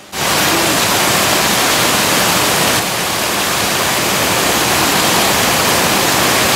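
Rows of small fountain jets of the Hundred Fountains at Villa d'Este splashing into a long stone channel: a loud, steady rush of water that starts suddenly.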